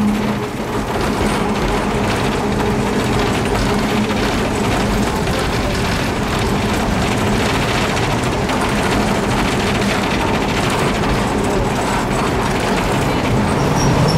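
Hiroden 100-type tram car 101, a Taisho-style streetcar, running along street track, heard from inside its cab: a steady running rumble of wheels on rail with dense rattling and clicking from the car.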